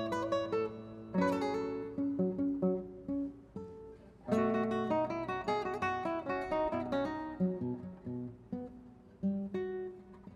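Solo classical guitar, its nylon strings fingerpicked: full chords struck about a second in and again at about four seconds, each followed by single notes and short melodic runs that ring and fade.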